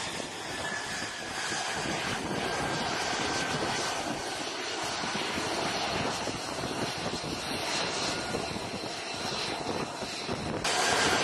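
F-35C's F135 jet engine running on the catapult: a steady jet rush with a faint high whine, growing louder near the end.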